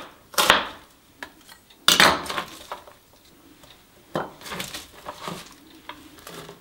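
Chef's knife chopping radicchio on a plastic cutting board: one stroke, then a sharp clatter about two seconds in as the knife is laid down on the board, followed by a few lighter knocks as the cut pieces are handled.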